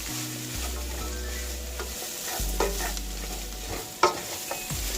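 Cabbage, onions and celery sizzling in a frying pan as they are stirred, with a utensil scraping and knocking against the pan several times. The loudest knock comes about four seconds in.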